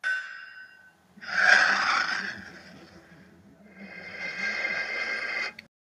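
Intro-animation sound effects: a bright ring that fades within a second, then a loud whoosh, then a sustained shimmering swell that cuts off abruptly near the end.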